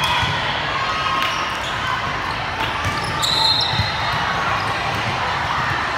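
Indoor volleyball being played in a large sports hall: sharp knocks of the ball being hit, over a steady din of players' and spectators' voices, with a brief high squeak a little over three seconds in.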